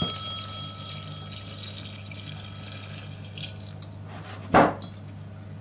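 Red wine pouring from a wine glass into a stainless steel saucepan of dried figs, a steady splashing trickle. A clear ringing tone fades away at the start, and a single sharp knock comes about four and a half seconds in.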